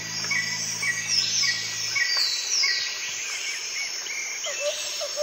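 Birds chirping and calling, with short chirps repeating about every half second and several quick downward-sweeping calls. A low held tone stops about two seconds in, and a lower call repeating a few times a second starts near the end.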